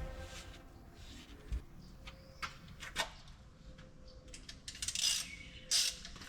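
Scattered light metallic clicks and clinks of hand tools and steel parts being handled, with a short rustling hiss about five seconds in.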